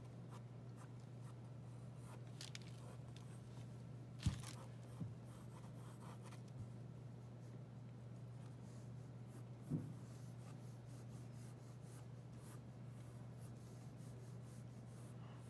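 Graphite pencil sketching on drawing paper: faint, scattered scratching strokes over a steady low hum, with two short, louder knocks, one about four seconds in and one near ten seconds.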